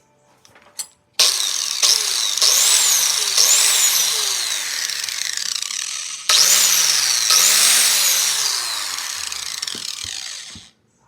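Black & Decker angle grinder running on test after a carbon-brush replacement, its motor whine rising and falling again and again as it speeds up and slows. It cuts out for a moment about six seconds in, starts again, and stops shortly before the end.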